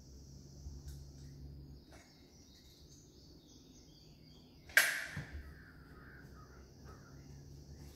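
Caulking gun being picked up and handled: one sharp metallic clack a little past the middle, with a short rattle trailing off. Under it run a faint steady high hiss and a low hum.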